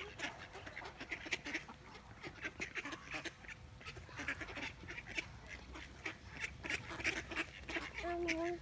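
A flock of wild ducks quacking and chattering, with many short calls overlapping several times a second. Near the end one longer, steadier call sounds out at a lower pitch.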